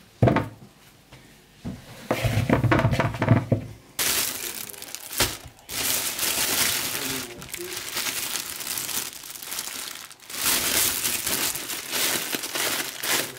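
Clear plastic bag full of potato peels crinkling and rustling as it is handled, loudly from about four seconds in, with a brief pause near ten seconds.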